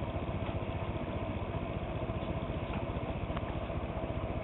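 Electric blower fan of a home-made solar air heater running steadily as it pushes hot air out of the vent. It makes an even hum with a fast, regular pulse.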